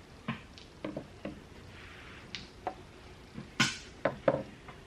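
Hand tools, antique rosewood-and-brass marking gauges, knocking and clacking as they are handled and set down: about eight light knocks, the loudest about three and a half seconds in.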